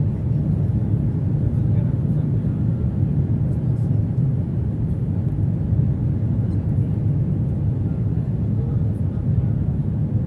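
Steady low rumble of the Jakarta–Bandung high-speed electric train at full speed, about 325–329 km/h, heard inside the passenger cabin.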